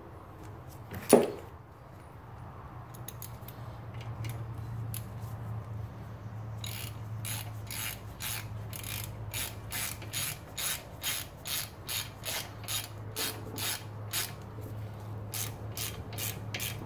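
Hand ratchet clicking as it runs in and tightens a brake rotor's retaining screw, in a regular run of about two clicks a second from the middle on, after a few scattered clicks. A single sharp clank about a second in.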